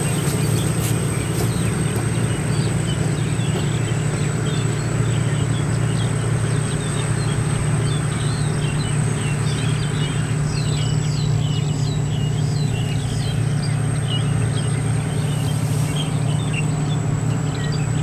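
Sakpattana KM-D 4.1 rice combine harvester running steadily under load while cutting and threshing rice, its turbocharged diesel engine holding an even pitch. Birds chirp faintly over the machine.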